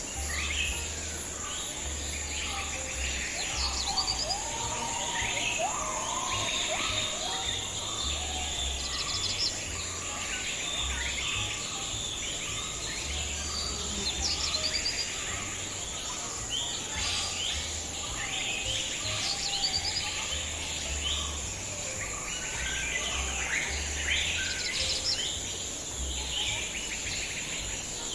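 Many birds chirping and calling in short, overlapping phrases over a steady high-pitched insect drone.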